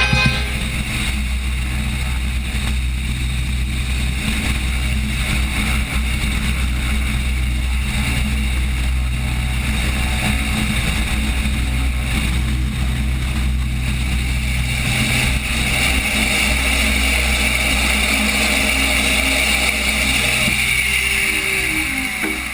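Propeller aircraft engines droning steadily, growing louder about two-thirds of the way through as the planes pass, then fading near the end.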